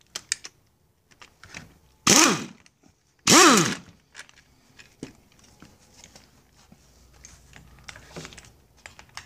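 Old rubber hoses squealing as they are twisted and pulled off the fittings of a 1989 Evinrude 175 HP outboard's VRO oil-injection pump. There are two loud squeals, about two seconds in and about three and a half seconds in, each shifting in pitch, then light handling clatter.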